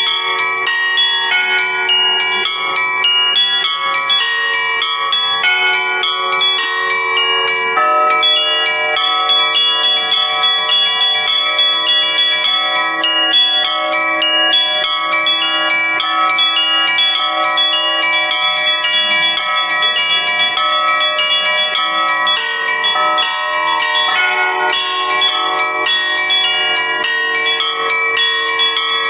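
Russian Orthodox church bells ringing: many bells of different pitches struck in a quick, overlapping rhythm, the pattern of bells changing about eight seconds in.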